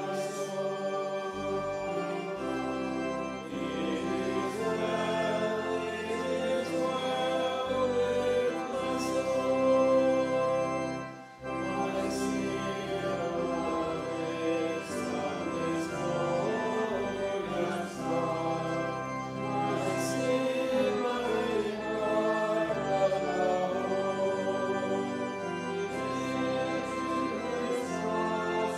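Hymn sung by the congregation with organ accompaniment: sustained chords and melody, with a short break between phrases about eleven seconds in.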